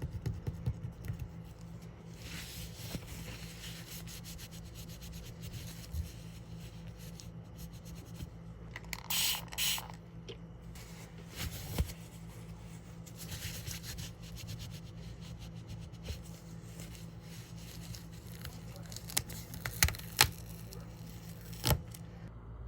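Rubbing and scraping from hand-cleaning a 1960 copper penny, with many small clicks, a pair of short hissy bursts about nine seconds in, and a few sharp clicks later on.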